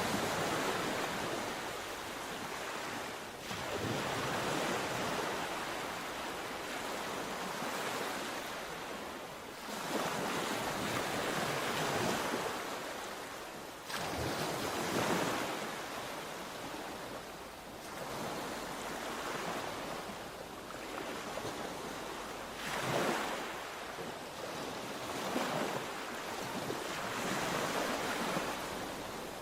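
Sea waves washing onto the shore, the surf swelling and easing every few seconds.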